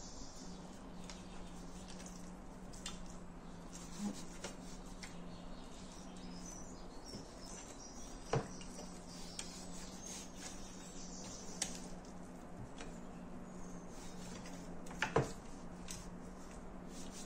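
Raw pork chops being turned and rubbed with seasoning in a metal tray, with a few light clinks of a fork against the tray, two of them sharper, near the middle and near the end. A steady low hum runs underneath.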